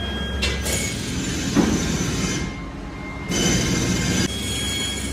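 Steady, loud mechanical noise of foundry machinery with thin high-pitched whining tones over it. Its character changes abruptly a few times, about half a second in, around two and a half seconds and about four seconds in.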